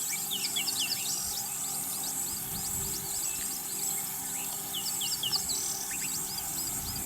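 Birds calling in rapid series of short, high chirps, several voices overlapping, over steady background noise.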